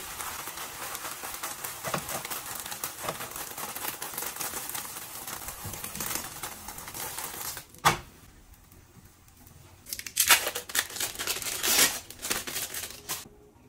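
Egg sizzling steadily in a frying pan under a tortilla, which breaks off with a sharp click about eight seconds in. From about ten seconds, a thin plastic wrapper crinkles loudly as a cheese slice is peeled out of it.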